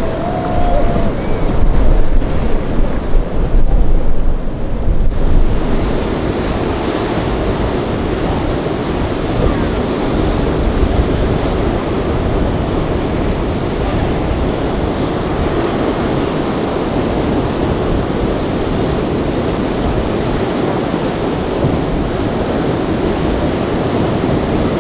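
Steady rush of wind-driven surf and breaking waves, with heavy wind buffeting the microphone for the first five seconds or so.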